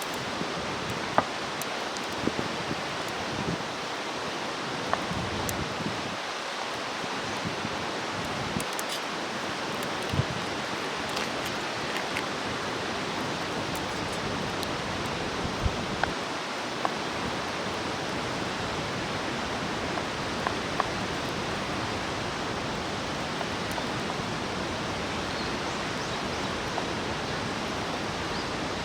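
Wood campfire crackling: scattered sharp pops and snaps over a steady rushing hiss.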